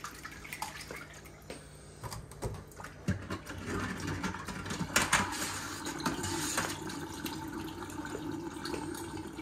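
Kitchen faucet running into a stainless steel sink while skinned squirrel carcasses are rinsed and handled under the water. A few light knocks come first, and the water grows louder about three seconds in.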